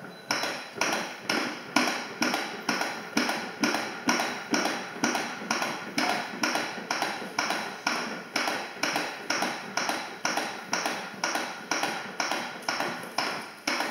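CPR training manikins being pressed in chest compressions by two people, each stroke a short tap or click, about two a second in a steady rhythm.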